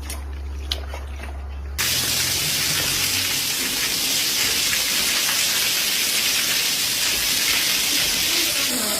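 A low hum with a few faint clicks, then about two seconds in a loud, steady rush of water sets in and continues.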